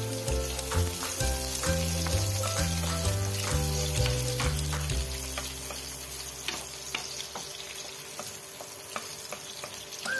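Sliced garlic, shallots and chilies sizzling in hot oil in a nonstick wok. A wooden spatula stirs them, with short knocks and scrapes against the pan. Background music with a stepping bass line plays over the first half and fades out about halfway through.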